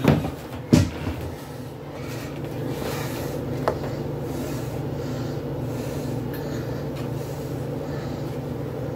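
A cutting board set down on the kitchen counter with a couple of knocks, the loudest just under a second in, then a knife faintly scraping butter across a slice of bread on the board over a steady low hum.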